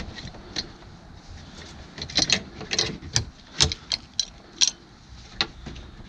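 Seat belt's metal hardware clicking and clinking as the belt and its anchor pieces are pulled through the car's pillar trim by hand: a few sharp clicks early on, then a quicker run of them from about two seconds in.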